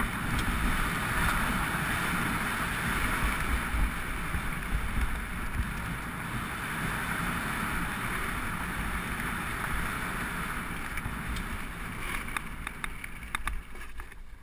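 Wind buffeting a bike-mounted GoPro's microphone over the rumble and rattle of a mountain bike's tyres on a dirt singletrack. Toward the end the noise eases as the bike slows, with a run of sharp clicks.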